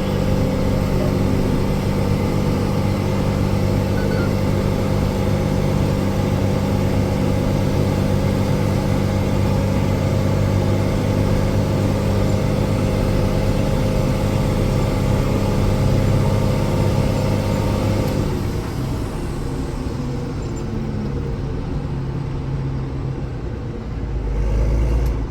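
Tractor engine running steadily on the road. About eighteen seconds in its note drops and it gets quieter as it eases off, with a short low rumble near the end.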